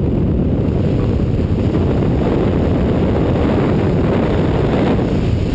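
Steady, loud rush of wind and engine noise at the open door of a high-wing jump plane in flight, mostly a low rumble, with wind buffeting the helmet camera's microphone.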